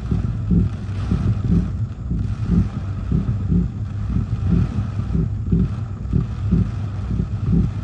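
Gusty hurricane-force wind buffeting a car and the microphone: a low, uneven rumble that pulses several times a second, over a steady low hum.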